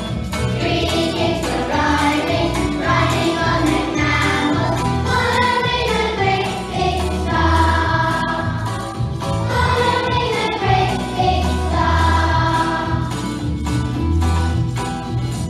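A choir of young children singing a nativity song along with a recorded backing track that has a steady bass beat.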